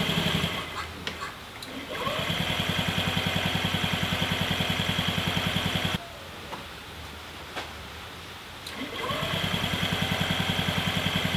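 Electric starter of a 2007 Honda Metropolitan scooter cranking its 49 cc four-stroke single twice, about four seconds each time, with a fast even chugging and a high whine. It spins up at each press and the first press cuts off sharply. The engine does not catch and run.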